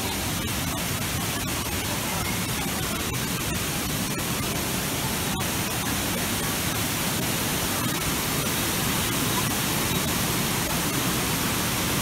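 Steady rush of cascading waterfall water, growing a little louder toward the end.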